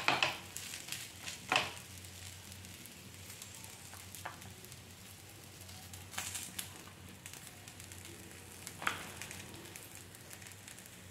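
Rice-flour rotti dough sizzling faintly and steadily on a hot tava, with a few brief sharp crinkles of the oiled plastic sheet as it is pressed and then peeled off the rotti, the most about six seconds in.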